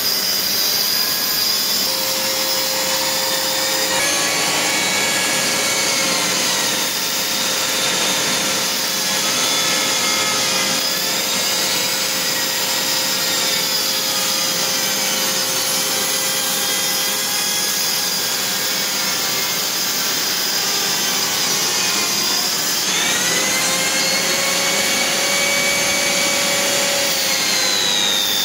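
Rotary tool on a flexible shaft grinding old grout out of tile joints, its whine dipping in pitch and recovering several times as the bit bites into the grout, with a vacuum cleaner running steadily alongside to suck up the dust.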